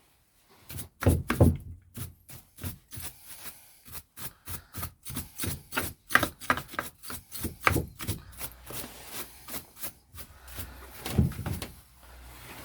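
Paintbrush scrubbing grime off Stihl FS130R strimmer engine parts: quick, uneven scratchy strokes, a few per second, with a couple of heavier knocks of the part being handled about a second in and near the end.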